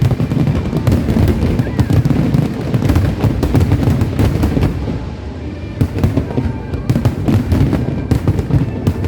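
Fireworks display in full barrage: a dense, continuous stream of bangs and crackles. It eases a little about halfway through, then builds again.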